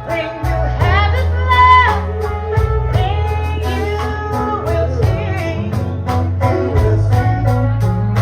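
Live gospel band playing, with a singing voice over electric bass, guitar and drums.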